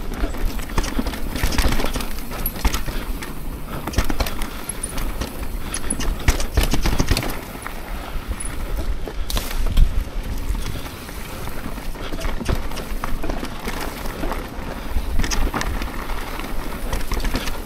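Mountain bike being ridden over a rough dirt trail: a fast, irregular clatter of knocks and rattles from the tyres, chain and frame over bumps, over a steady low rumble.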